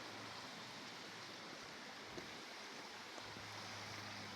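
Stream water running steadily, a faint even rushing.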